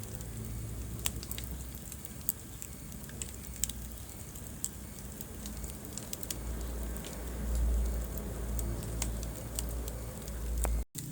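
Wood fire crackling in a fireplace: scattered sharp pops and snaps over a low, steady rumble of burning. The sound cuts out for a split second near the end.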